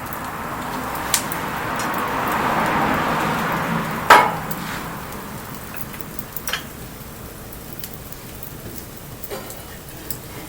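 Wood bonfire burning in light rain: a hiss that swells and fades over the first few seconds, with a few sharp pops and crackles from the fire, the loudest about four seconds in.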